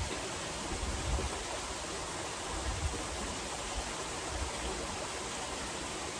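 Steady rushing and splashing of a rock waterfall spilling into a backyard swimming pool, with a few soft low bumps.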